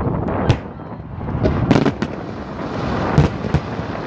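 Aerial fireworks shells bursting in a series of sharp bangs: one about half a second in, a cluster just before two seconds, and two more a little after three seconds.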